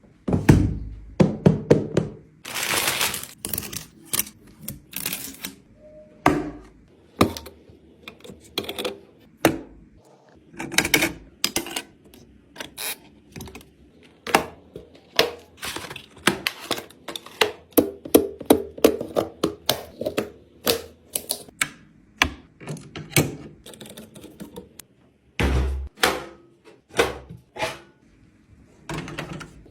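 Irregular clicks, taps and thunks of hard objects being handled and set down, with a few heavier knocks among them.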